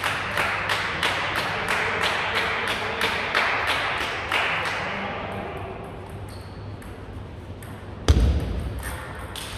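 Small crowd of spectators clapping after a table tennis point, an even patter that fades out over about five seconds. A single sharp thud comes near the end.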